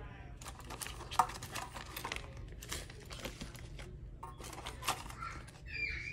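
Handling of a mini RC drift car kit's parts: small plastic zip bags of parts crinkling, with light clicks and clinks, the sharpest about a second in.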